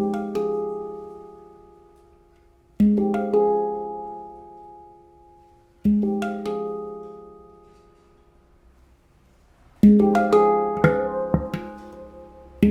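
F Equinox 10 handpan (Maru 2nd generation, F minor-type scale with an F3 ding) played by hand: slow phrases about three seconds apart, each a low note struck with a few higher notes and left to ring and fade. About ten seconds in comes a quicker run of several strikes.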